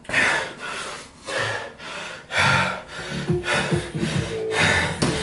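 A man breathing hard through the mouth, heavy rasping breaths about once a second, recovering just after a three-minute kettlebell jerk set.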